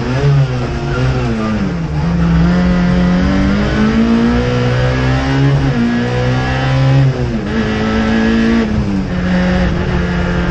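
Race car engine heard from inside the cockpit under hard acceleration, its revs climbing and then dropping sharply about every two seconds as the car works up and down through the gears.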